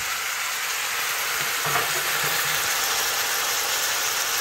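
Stew sizzling steadily in a hot pot on the stove, an even hiss.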